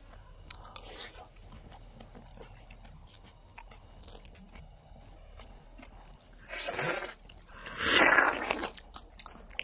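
Someone biting into and eating a fresh fruit close to the microphone: quiet mouth and handling noises, then two loud eating bursts about six and a half and eight seconds in.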